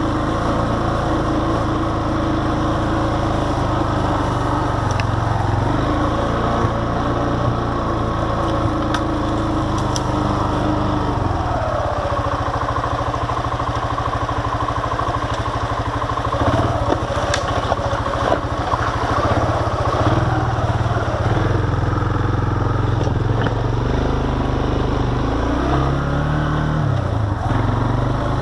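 ATV engine running at trail-riding speed, its note shifting as the throttle opens and closes, with occasional sharp knocks and rattles from the machine on rough, rocky ground.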